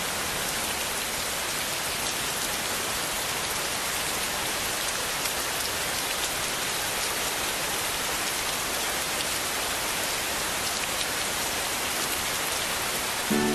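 Steady rain falling on a street: an even hiss with no break.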